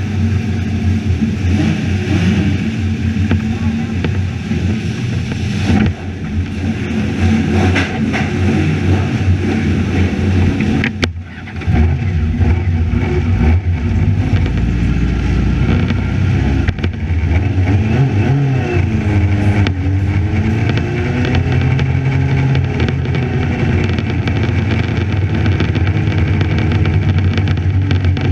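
Racing sidecar outfit's engine running loud at high revs, heard from a camera on the outfit's fairing. The sound drops briefly about eleven seconds in, and about two-thirds of the way through the engine note falls and then climbs again.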